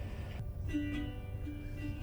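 Background music: plucked strings, guitar or ukulele, picking notes over a steady low rumble.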